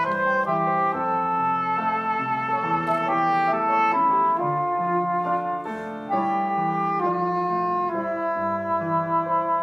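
Soprano saxophone playing a slow, sustained melody over grand piano accompaniment, with a short dip in level about six seconds in before the melody carries on.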